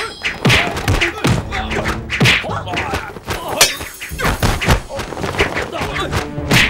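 Staged kung-fu fight sound effects: a rapid string of punch and kick thuds and whacks, mixed with short shouts and grunts.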